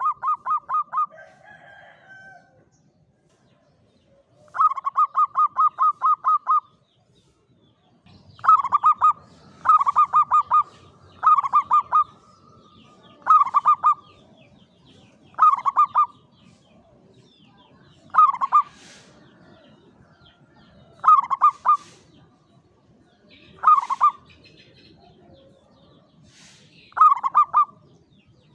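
Zebra dove (perkutut) cooing. About five seconds in comes a long run of around ten rapid staccato coos, followed by short bursts of three or four quick coos repeated every two seconds or so.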